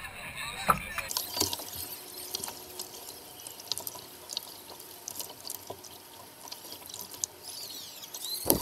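River water splashing and dripping close to a kayak's bow as it is paddled, with many small drips and splashes, and a sharper knock near the end.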